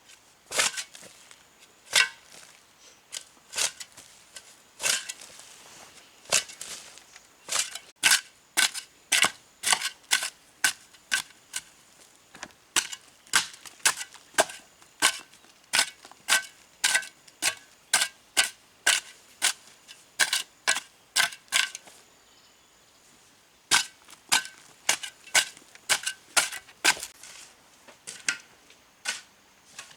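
A hand tool striking hard material again and again, sharp blows with a light ring at about two a second. They come in runs, with a brief pause about halfway and another near the end.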